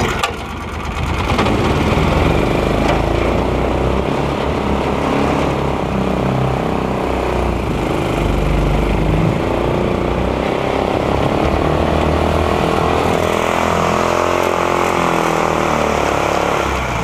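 Small petrol engine of a long-tail mud motor running hard, its pitch wavering up and down as the boat is driven through shallow water, with the propeller throwing spray behind it.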